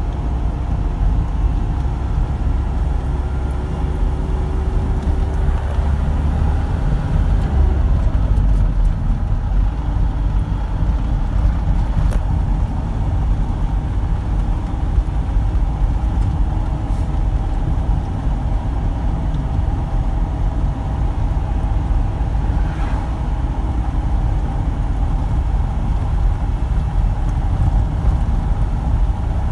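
Truck engine and road noise heard inside the cab while driving: a steady low rumble, with a change in the engine note about seven seconds in.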